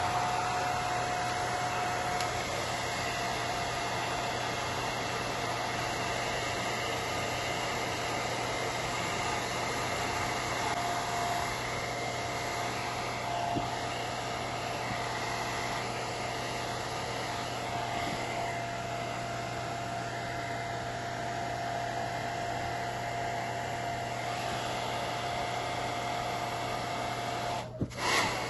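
Handheld Bed Head hair dryer running steadily on its low heat setting: a rush of blown air with a steady whine, broken only briefly near the end.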